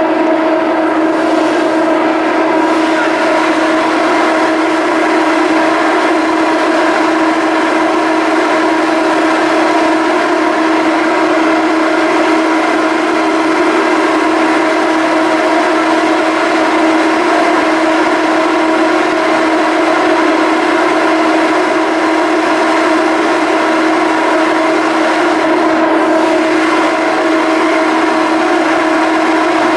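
Machinery of a BC Ferries Salish-class ferry running with a steady hum: one strong, unchanging tone with overtones above it, with no rise or fall in pitch or level.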